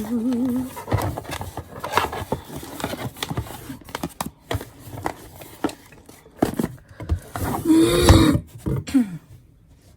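A mail package being handled and opened: a run of scrapes, clicks and rustles of packaging, with brief humming and a vocal exclamation near the start and about eight seconds in.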